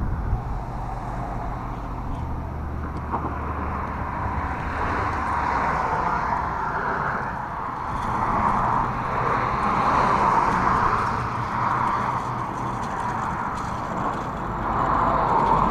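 Road traffic going by: a steady rush of tyres and engines that swells as vehicles pass, loudest about halfway through and again near the end, with a low engine hum in the first few seconds.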